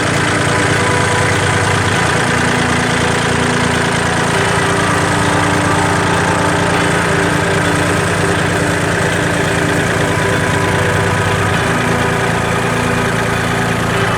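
Engine running steadily, with a small change in its tone about two seconds in and again near the end.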